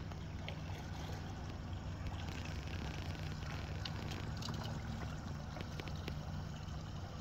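Mercury outboard motor on a small houseboat running steadily: an even low hum.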